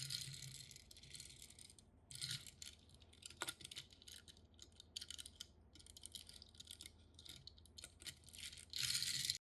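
Small die-cast toy cars and their packaging being handled: rustling and light rattling in irregular short bursts, loudest at the start and again near the end, over a faint steady low hum.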